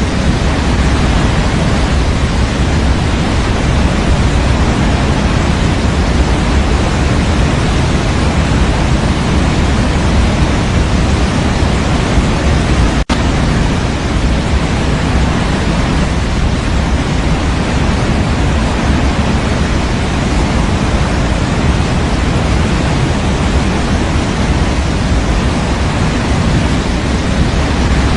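Steady, unbroken white-noise track for baby sleep, an even hiss with most weight in the low end. A split-second dropout about halfway through.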